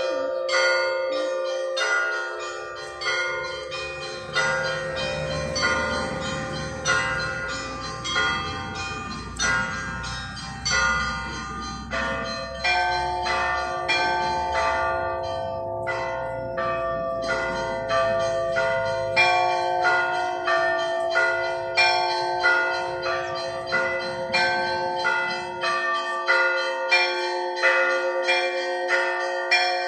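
Church bells ringing a Russian-style peal: quick repeated strikes on small bells over the long ringing of larger ones. A deeper bell comes in about twelve seconds in, and the strikes grow more regular toward the end.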